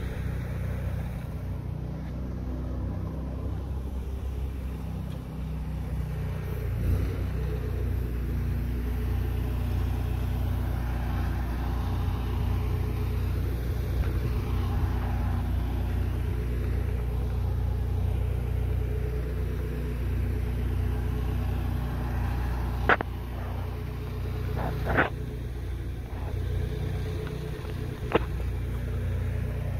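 An engine running steadily with a low rumble, and three sharp knocks near the end.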